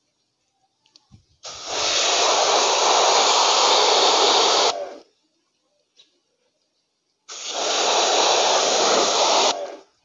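Pressure washer jet spraying water onto the split air conditioner's indoor unit to clean it, in two bursts: one of about three seconds starting a second and a half in, and a shorter one near the end.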